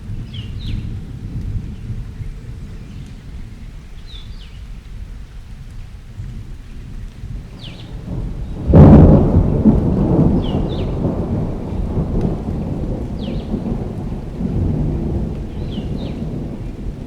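Thunderstorm with rain: distant thunder rumbles low, then a close thunderclap cracks sharply about halfway in and rolls on as a loud rumble that slowly fades.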